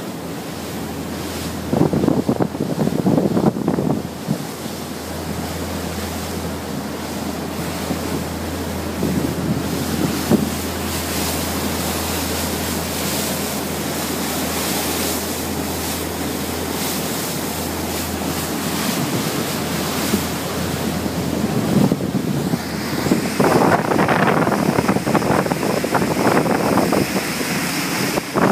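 Wind buffeting the microphone and water rushing along the hull of a patrol boat running at speed, over a steady low drone from the boat's engines. The wind gusts come and go, strongest near the start and over the last few seconds.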